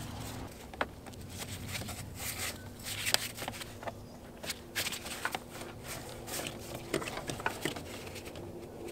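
Gloved hands handling plastic intake-box parts: rubbing and scuffing with scattered light clicks and taps, about half a dozen of them.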